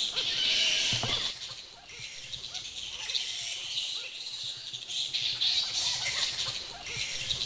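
A roosting colony of flying foxes (fruit bats) calling in the trees: a dense chorus of many overlapping high-pitched squeaks and chirps, really noisy.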